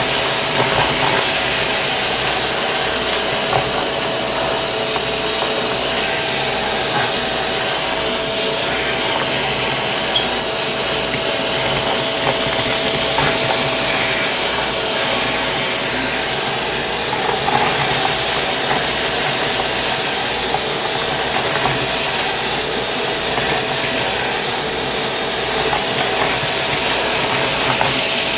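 Shark vacuum running through its crevice tool: a steady rushing hiss with a constant thin whine, broken by small scattered crackles as sequins and glitter pieces are sucked up the nozzle.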